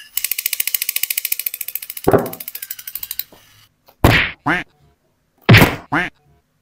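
Battery-powered crawling Spider-Man toy with a toy rifle running: a fast, even buzzing rattle of about a dozen pulses a second, with a louder thud about two seconds in, that cuts off suddenly. It is followed by two pairs of sharp thwacks, a longer hit then a shorter one, about a second and a half apart.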